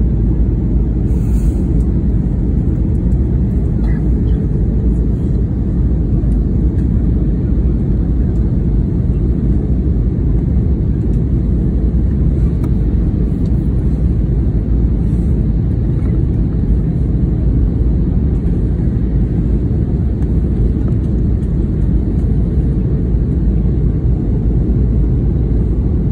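Airbus A320 airliner in flight heard from inside the cabin: a loud, steady low rumble of engines and airflow that holds even throughout.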